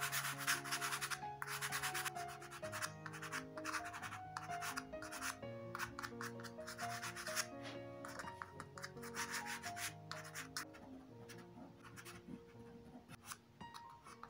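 Quick back-and-forth strokes of a pastel pencil and then a soft pastel stick scratching over textured pastel card, shading water ripples. The strokes come thick and fast for the first half and grow sparser toward the end, over soft background music with held notes.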